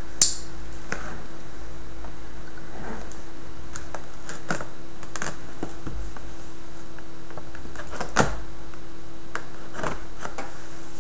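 Hands handling a shrink-wrapped cardboard retail box on a desk while a small knife is worked at it to open the packaging: scattered light clicks, taps and rustles, with a sharp click about a quarter second in and another about eight seconds in, over a steady background hum.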